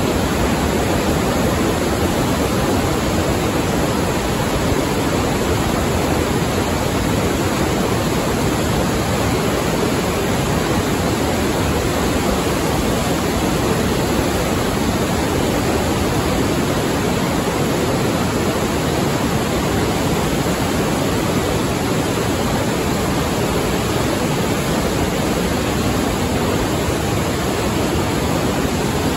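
Glacial meltwater river rushing as whitewater through a narrow rock gorge, a loud, steady, unbroken rush of water.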